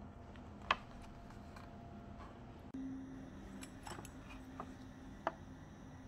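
A handful of sharp clicks and taps from metal chopsticks and tableware being handled, the loudest about a second in and the rest spread through the second half.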